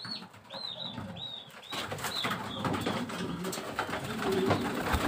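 Domestic pigeons cooing in a loft, with short, high arched chirping calls repeated through the first two seconds. From about two seconds in, wire cages rattle and knock as they are handled.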